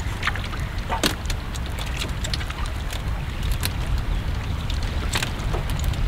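Steady low wind rumble on the microphone and water moving against a wooden fishing boat's hull, with scattered short clicks.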